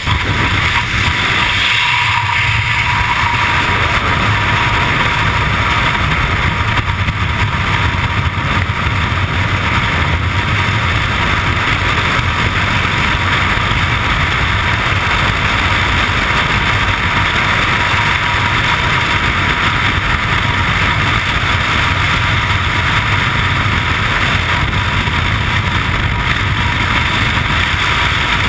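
Freefall wind rushing over a camera microphone: a loud, steady rush that starts suddenly as the skydivers leave the aircraft and holds unchanged.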